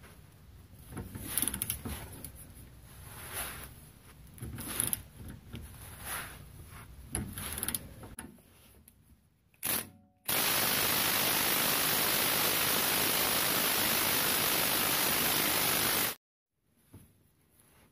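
Hand ratchet with a socket working the rusted lower bolt of a rear strut, in short irregular strokes about a second apart for the first eight seconds. About ten seconds in, a loud steady hiss starts suddenly and cuts off just as suddenly some six seconds later.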